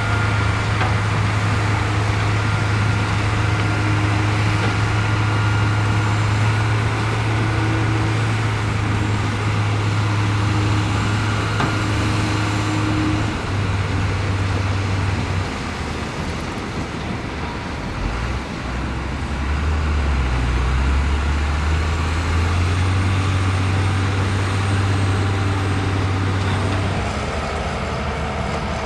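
Heavy diesel engine of earthmoving machinery running steadily with a strong low drone. About halfway through the engine note drops lower and wavers, then climbs back as the engine speed changes.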